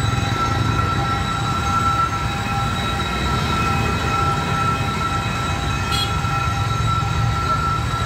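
Motorbikes and cars driving over a level crossing, a steady low rumble of small engines and tyres. Several steady high-pitched tones run through it, and there is a brief click about six seconds in.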